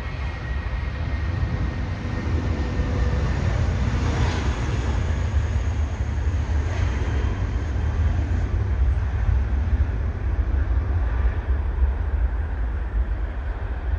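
Jet airliner engine noise: a steady, broad rumble with a heavy low end.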